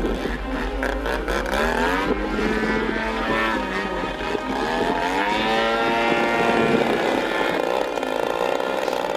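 GP 123 engine of a 108-inch Extra 330LT radio-control aerobatic plane in flight. Its pitch falls and rises several times, around two to three seconds in and again around four to six seconds, as the throttle changes and the plane passes overhead.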